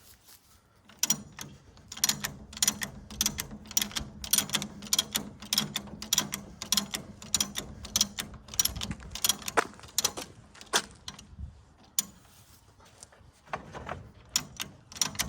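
Original Model T Ford car jack being ratcheted up to raise the car: a long run of sharp metal clicks, about three to four a second, a pause, then a few more clicks near the end.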